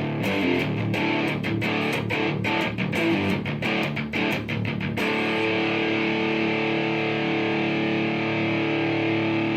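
Gibson Les Paul Special SL electric guitar played through heavy overdrive distortion: a riff of rapid picked notes for about five seconds, then a chord left ringing. It sounds heavy.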